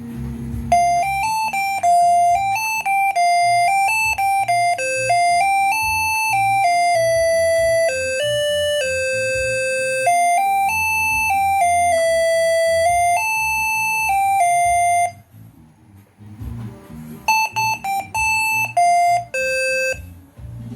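Basuri six-trumpet telolet air horn, driven by its MS1 melody module, tooting a quick tune of short, clear notes for about fifteen seconds. After a brief pause it plays a few more rapid notes near the end.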